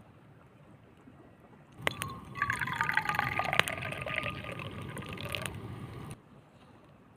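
Liquid pouring for about four seconds, with a tone that falls steadily as it runs and a few sharp clicks, stopping abruptly.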